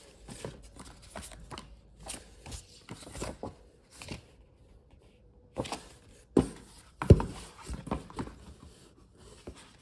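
Paper certificates and printed card folders handled by hand: rustling, sliding and light knocks against the box, with a sharper knock about seven seconds in.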